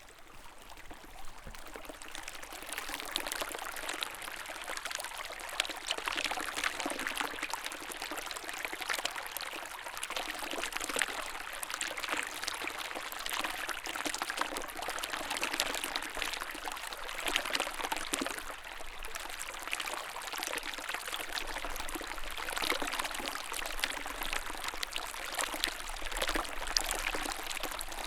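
Small snowmelt-fed stream flowing: a steady splashing, trickling rush of water that grows louder over the first few seconds.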